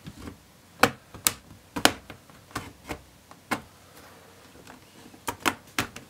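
Plastic snap clips of an HP 15-gw0502sa laptop's base clicking loose one after another as a plastic pry tool is worked along the seam between base and palm rest. There are about nine sharp clicks at uneven intervals, with a short lull after the middle.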